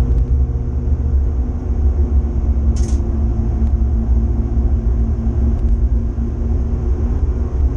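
Renault Clio 182's 2.0-litre four-cylinder engine running at fairly steady revs under racing load, heard from inside the cabin over heavy road and tyre rumble. A short sharp noise cuts in briefly about three seconds in.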